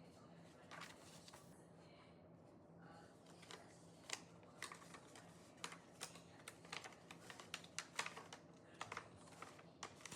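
Typing on a Monstargear Ninja 108SE mechanical keyboard: sparse key clicks at first, then a run of quick, irregular keystrokes from about four seconds in.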